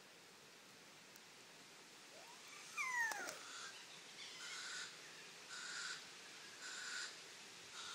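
An owl calling: one short squeal falling in pitch about three seconds in, then a run of short raspy hisses about once a second.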